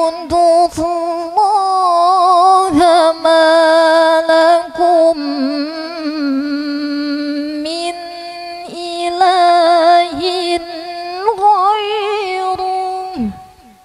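A woman reciting the Quran in melodic tilawah style into a microphone, holding long notes with wavering ornaments and brief pauses for breath. The phrase ends with a quick falling tail shortly before the end.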